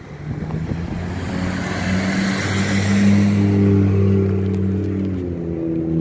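Another motor vehicle's engine running close by, its steady hum swelling through the middle with rising and fading road noise, as if it drives past, and shifting in pitch about five seconds in.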